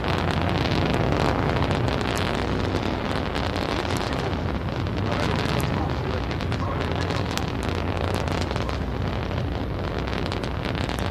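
Soyuz rocket engines during ascent, about half a minute after liftoff: a steady deep roar with sharp crackling pops through it.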